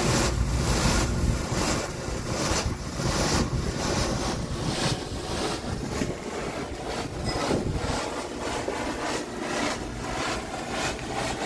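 Steam hissing from an open vent valve on a Merryweather hybrid fire-tube/water-tube boiler, purging air from the steam space as the boiler comes up to pressure. A continuous rushing hiss that surges and sputters irregularly.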